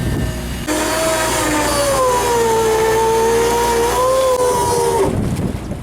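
Electric deep-drop fishing reel winding in line: a motor whine that starts abruptly about a second in, sags in pitch as it loads up, lifts slightly, then cuts off near the end, over a low rumble of boat and wind.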